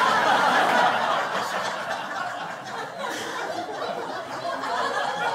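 Audience laughing at a stand-up comedian's punchline, loudest at the start and gradually dying down.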